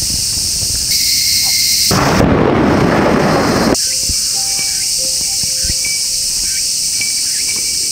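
Insects shrilling steadily, with a crack of thunder about two seconds in that rumbles for under two seconds and cuts off abruptly.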